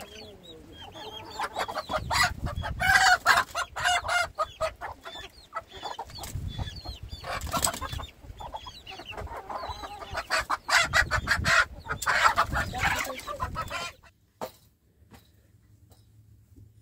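Chickens clucking, with many short knocks and clicks mixed in. The sound drops away sharply about fourteen seconds in.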